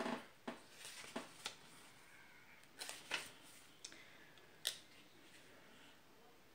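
Pages of a paperback guidebook being flipped and handled: a string of short, sharp paper rustles and crackles, irregular, with the sharpest one a little before the five-second mark.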